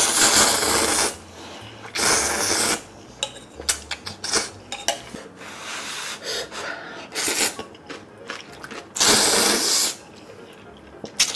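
Loud slurps of spicy instant noodles, three rushing slurps about a second long each: one at the start, one about two seconds in and one about nine seconds in. Quieter wet chewing and small mouth clicks fill the gaps between them.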